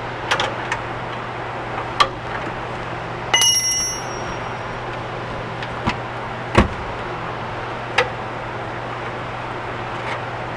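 Small metal clicks and clinks of a wrench and a brake line flare nut being loosened and unscrewed, with one bright metallic ring about three seconds in, over a steady hum.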